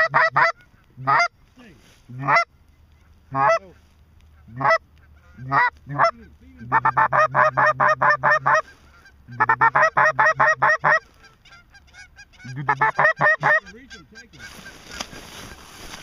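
Goose calls blown loud and close: single honks spaced about a second apart, then three fast runs of honks and clucks, the calling used to work incoming geese. A rustling noise follows near the end.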